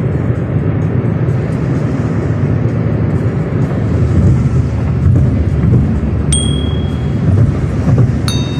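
Steady road and engine noise inside a car cabin moving at highway speed. About six seconds in, a short electronic chime tone sounds, and near the end a brighter bell-like ding with several tones, added with the on-screen subscribe-button animation.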